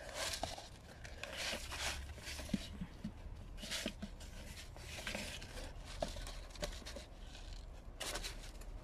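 Dry granules shaken out of a cardboard bucket onto potting soil: a gritty, rustling hiss that comes in several short pours.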